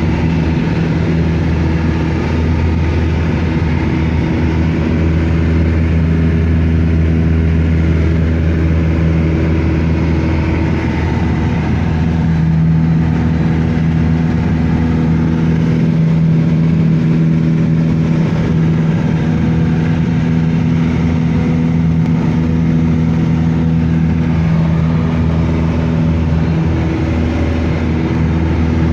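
Steady engine drone with a low hum that shifts slightly in pitch about twelve seconds in, running without a break.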